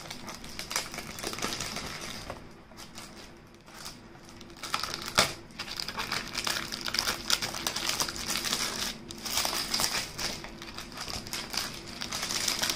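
Clear cellophane wrapping being torn and peeled off a perfume box by hand, crinkling and crackling, with one sharp louder crackle about five seconds in.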